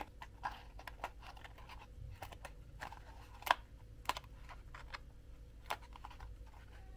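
Cardboard pieces being handled and pressed together by hand: irregular light taps, clicks and rustles, with a sharper click about three and a half seconds in.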